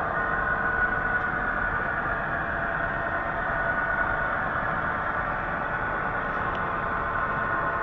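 HO-scale model passenger train running along the layout track, a steady mechanical hum with a whine.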